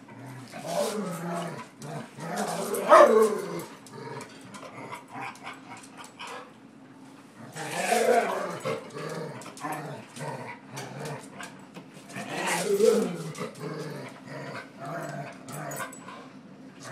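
A dog growling in three loud bouts, about one, eight and twelve seconds in, with quieter grumbling between: a dog objecting to being pushed around.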